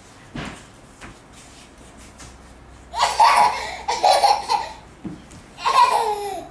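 Toddler laughing in two loud, high-pitched bursts, the first about three seconds in and the second near the end, falling in pitch as it fades. A couple of soft thumps come before them.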